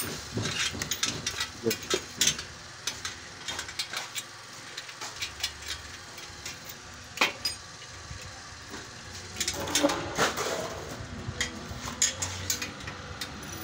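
Scattered light metallic clicks and taps from hand work on a steel battery rack being bolted together, with one sharper tap about seven seconds in.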